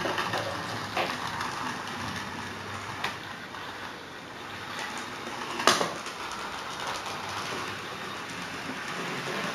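Model train running on the layout's track, giving a steady hiss-like running noise. A few light clicks come through it, and one sharper knock a little past halfway.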